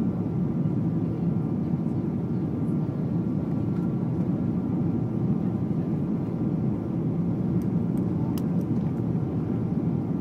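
Steady low rumble of airliner cabin noise heard at a window seat of a Boeing 777-200ER in flight: engine and airflow noise, with a faint steady whine above it and a few faint ticks about eight seconds in.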